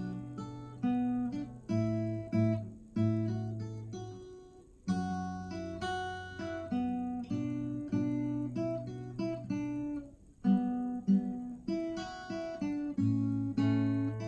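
Acoustic guitar played solo: plucked and strummed chords changing about every second, with no singing.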